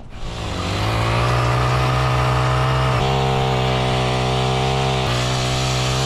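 Small Echo two-stroke chainsaw revving up over the first second, then running at a steady high speed.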